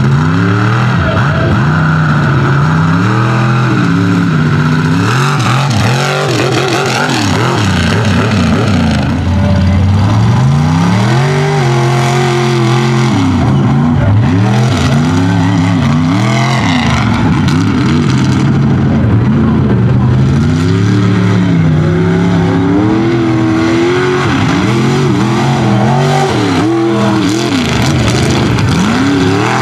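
Mega truck engines under hard throttle, revving up and falling off again and again as the trucks race the track.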